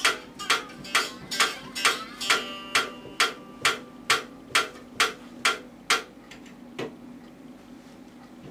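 Homemade one-string diddley bow with a Jack Daniel's tin resonator, picked in a steady rhythm of about two strokes a second with a tinny twang. The picking stops about six seconds in, after one faint last stroke, and the string rings on.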